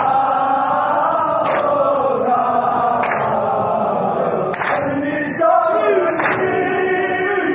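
A group of men chanting a nauha, a Muharram lament, in unison. Sharp slaps of matam (chest-beating) land with the chant about every second and a half.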